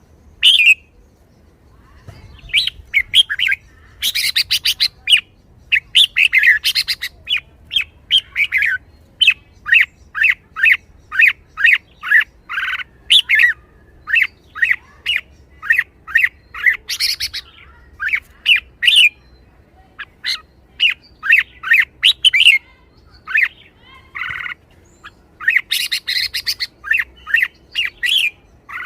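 Red-whiskered bulbul singing: a long run of short, sharp phrases coming about once or twice a second, broken by several fast chattering bursts. It starts about two seconds in.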